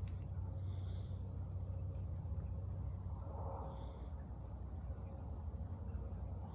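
Canada goose bathing in a shallow creek pool, with a soft splash of water about three and a half seconds in. A steady low rumble runs underneath, and faint high chirps come every few seconds.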